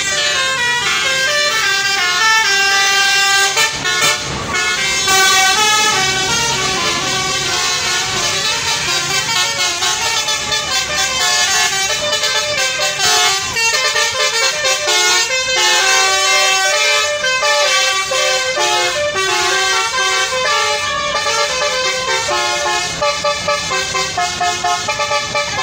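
Indonesian 'telolet' bus horns, multi-tone electric horn sets of the Basuri type, playing quick, tuneful note patterns. Several horns overlap and sound with hardly a break.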